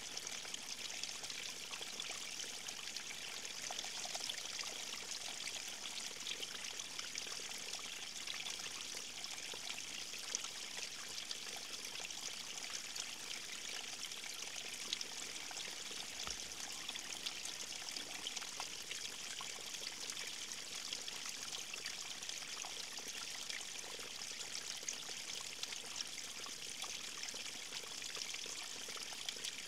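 River stream flowing over rocks: a steady splashing and trickling rush, brightest in the high range, with small scattered drips and splashes.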